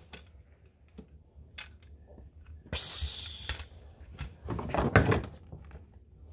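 Small dollhouse door and dolls being handled: scattered light clicks and knocks, with a louder cluster of knocks about five seconds in as the toy door is swung open.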